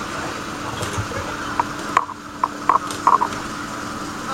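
A string of short, sharp mechanical clicks and clacks, irregularly spaced, starting about a second and a half in.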